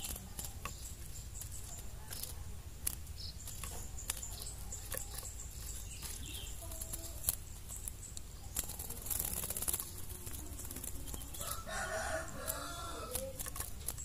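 A rooster crows once near the end. Earlier come short rustles and flutters as a wet juvenile long-tailed shrike shakes out its soaked feathers on its cage perch, over a steady low outdoor hum.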